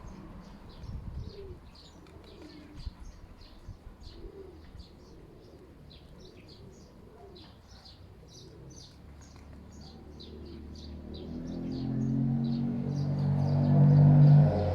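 Small birds chirping repeatedly, with a dove cooing low in the first few seconds. From about ten seconds in, background music with sustained tones fades in and swells to the loudest sound near the end.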